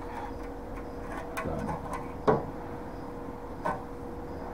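A few sharp metallic clicks and knocks of tools being handled on a steel workbench, the loudest about halfway through, over a faint steady hum.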